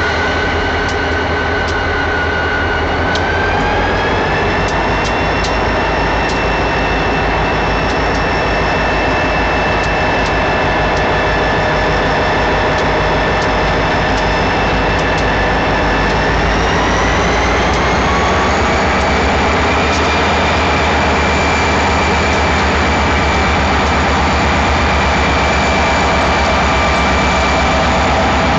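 Union Pacific diesel locomotive running steadily, its engine and turbocharger whine stepping up in pitch twice, about three seconds in and again around seventeen seconds, as the throttle is notched up.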